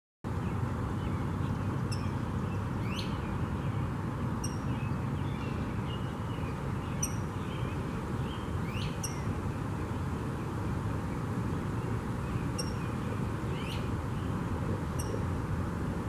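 Rose-breasted grosbeak giving short, sharp, squeaky call notes, one about every two to three seconds, over a steady low background rumble.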